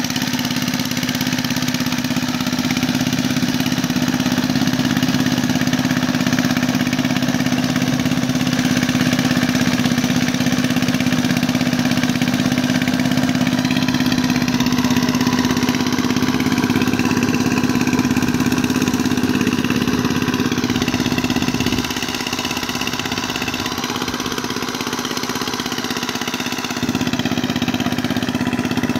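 Engine of a walk-behind mud boat tiller running steadily under load as it works a flooded rice paddy. Its loudness dips a little about three-quarters of the way through and comes back up near the end.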